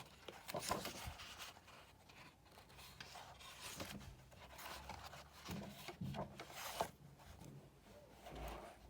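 Soft, irregular rustling and scraping of small objects being handled close by, with a few sharper strokes.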